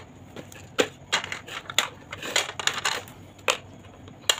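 Crayons clicking and knocking against a plastic pencil box as they are put into its drawer: a string of uneven light clicks.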